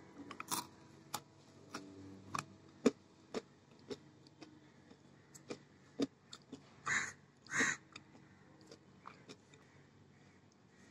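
A person biting and chewing a crisp, brittle snack: sharp crunches at irregular intervals, with two longer, louder crunches about seven seconds in.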